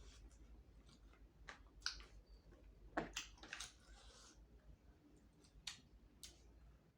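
Faint, close-up chewing of spicy chicken heads: scattered wet mouth clicks and smacks, busiest about three seconds in.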